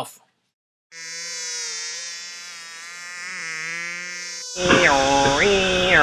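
Cicadas buzzing in a steady, dense drone. About four and a half seconds in, a louder, muffled sound with sliding pitches cuts in over it.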